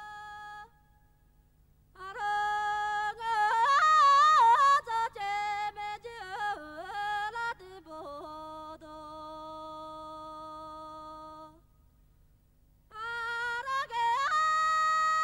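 A high solo voice singing unaccompanied, holding long notes with wavering, ornamented turns between them, and breaking off twice for a breath.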